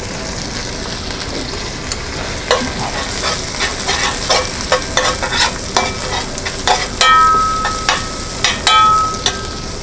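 Shallots and chopped black truffle sizzling in butter and a splash of water in a frying pan, stirred with a utensil that scrapes and knocks against the pan again and again. A couple of short high squeaks come in the second half.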